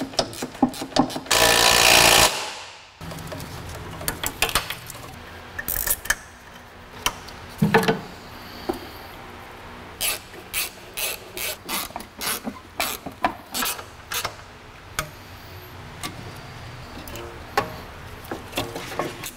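Hand socket ratchet clicking in short runs as bolts are turned on the rear strut and knuckle of a car's suspension. There is a loud, noisy burst lasting about a second, about a second in.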